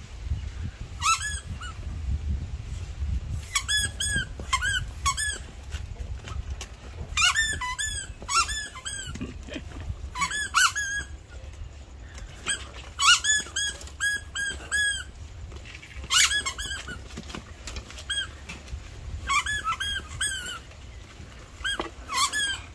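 A squeaky rubber toy squeaking as a husky chews it. The squeaks come in quick runs of several at a time, a fresh run every two to three seconds.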